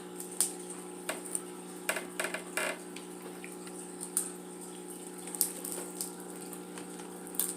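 Close-up eating sounds of a seafood boil: scattered clicks and smacks, with a short cluster of them about two seconds in, over a steady background hum.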